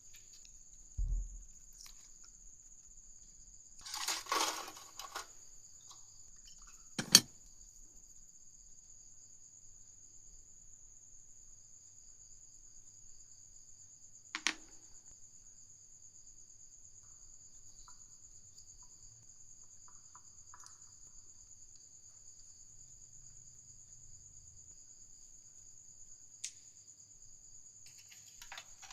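A steady, high-pitched chirring tone over quiet, with a few scattered handling noises: a low thump, a short rustle, then a sharp click about seven seconds in and two fainter clicks later.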